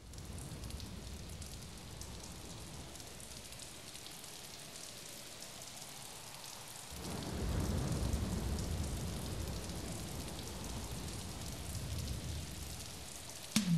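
Steady rain falling, growing heavier and louder from about halfway through. A sudden louder sound with a short falling low tone comes just before the end.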